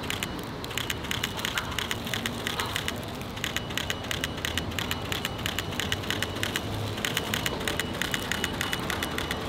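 Mirrorless camera shutter firing in rapid bursts, several clicks a second in runs with short breaks between them, as the photographer fires off frames.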